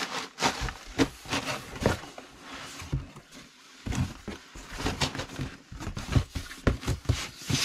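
Crumpled brown paper void fill rustling and crackling as it is pressed down into a cardboard box, then the box's cardboard flaps scraping and knocking as they are folded shut. The noises are short and irregular throughout, with a quieter patch in the middle.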